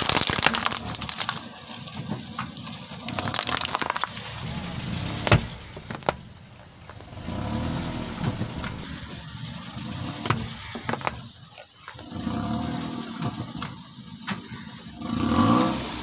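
Car tyre rolling over small plastic toys, crushing them with a run of cracking and snapping, then two sharp snaps about five and six seconds in. Under it the car's engine runs at low speed, rising and falling as the car creeps forward.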